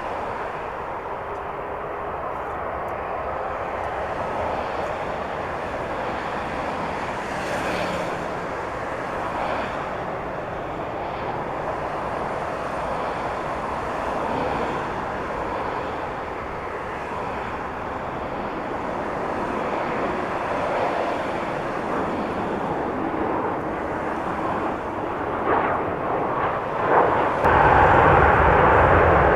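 Jet airliner engines, a steady rush of noise that grows gradually and then gets sharply louder near the end.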